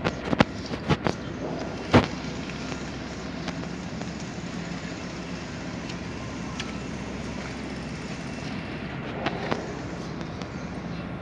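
Steady outdoor city hum of distant traffic, with several sharp knocks in the first two seconds and two more near the end.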